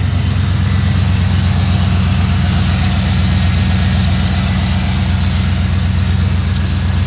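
Ford van engine idling steadily, running again after a no-start fault.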